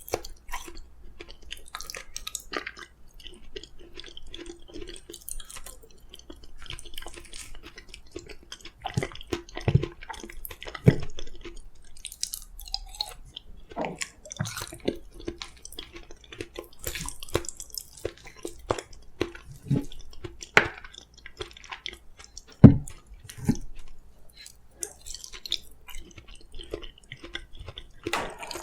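Close-miked eating of soft steamed sweet pumpkin: wet, squishy chewing and mouth clicks throughout. A few sharp low thumps stand out, the loudest about 23 seconds in.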